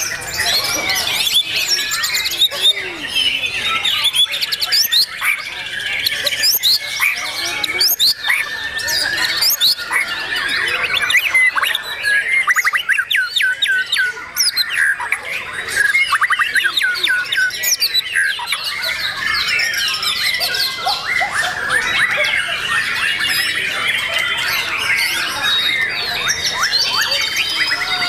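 White-rumped shamas singing together in contest cages: a dense, unbroken stream of loud whistles, trills and harsh chattering notes, with a run of rapid repeated notes around the middle.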